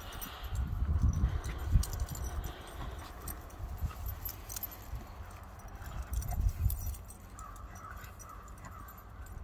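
Two small dogs play-wrestling on grass, heard faintly under an uneven low rumble, with scattered light jingling clicks.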